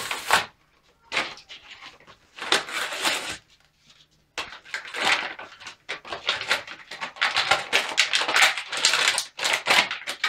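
A Mattel action figure's cardboard box and plastic tray being torn open and crinkled by hand. The crackling comes in irregular bursts and is nearly continuous in the second half.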